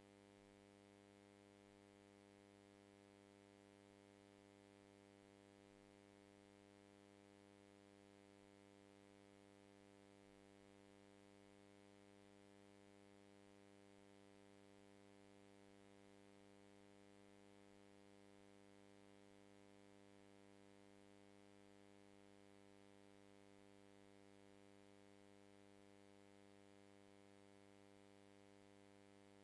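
Near silence: only a faint, steady electrical hum with light hiss.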